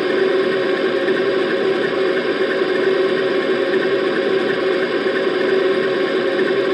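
ESU LokSound decoder in a Roco BR 232 model locomotive playing a recorded BR 232 diesel engine idling steadily, heard through an EM1 speaker fitted into the milled-out fuel tanks.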